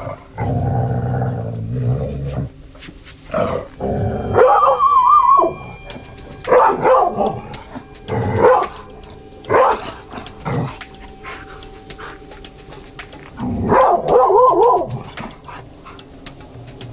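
Dog barking in a run of separate barks, with two longer high, wavering whining cries, one about four seconds in and one near the end.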